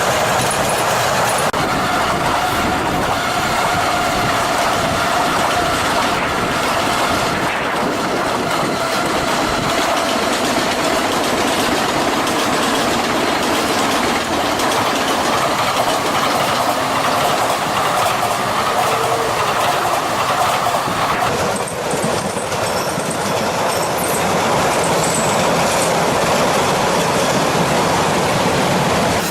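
A train running past on rails, loud and continuous, with wheels clattering over the track and a steady whine that fades about 21 seconds in.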